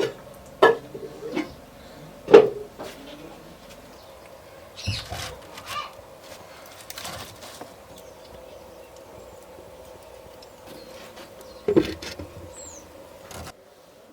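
A series of sharp knocks and clatters with short ringing, the loudest about two and a half seconds in and another near the twelve-second mark, over a faint steady hum. A single brief high chirp, like a bird's, comes near the end.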